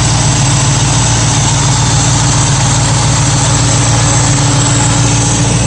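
1965 Mustang engine idling steadily while hot, with the electric radiator fan running.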